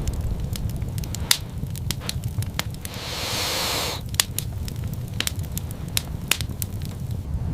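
Wood fire crackling: irregular sharp pops over a steady low rumble, with a brief hiss about three seconds in.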